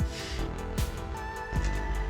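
Background music with a steady beat: a low drum thump about every three-quarters of a second, quicker high ticks between, over held tones.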